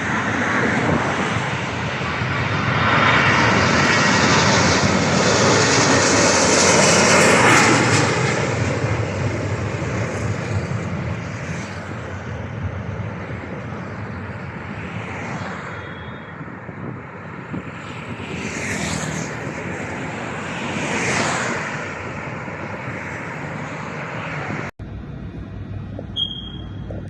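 Aircraft engines of a passing airliner, a loud roar that builds to a peak about seven seconds in and then slowly fades away. An abrupt cut near the end leaves quieter background noise.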